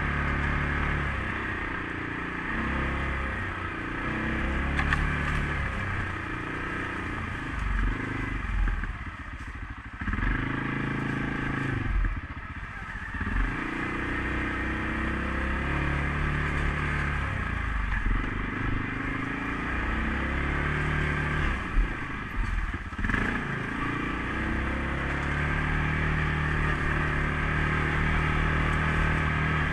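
CFMOTO CForce 500S ATV's single-cylinder engine running as it is ridden, its pitch falling off and climbing back as the throttle is eased and reopened, about a third of the way in, a few seconds later, and again near three-quarters through. A few sharp knocks and clatters from the machine sound over the engine.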